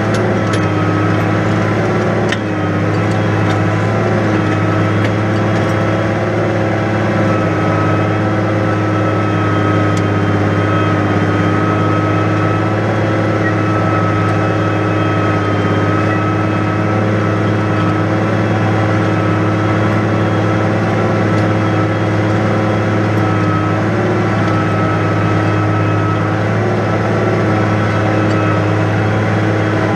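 New Holland 100-90 tractor's diesel engine running steadily, with a steady high whine above it.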